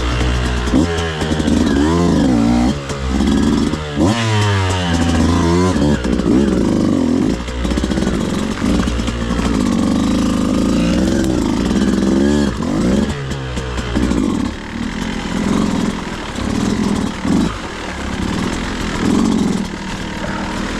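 Beta 200RR two-stroke dirt bike engine revving up and down over and over, its pitch rising and falling every second or two as the throttle is worked.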